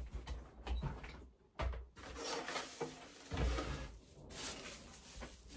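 Things being handled and put away at a wooden desk: a series of knocks and thumps with rustling and scraping in between.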